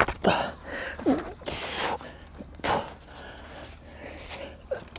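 A person straining at heavy work: short grunts, breaths and exhales, with a few brief scuffs in between.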